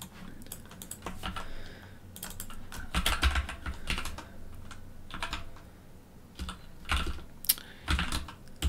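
Computer keyboard typing in short, irregular runs of keystrokes, as shell commands are typed into a terminal.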